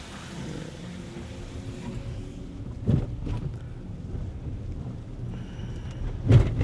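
Low rumble of gusting wind on the microphone in stormy weather, with two sharp thumps, one about halfway through and a louder one near the end.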